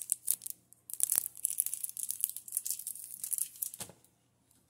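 A product's packaging wrapper being torn open and crinkled by hand, in quick crackly bursts. It stops about four seconds in, just after a soft knock.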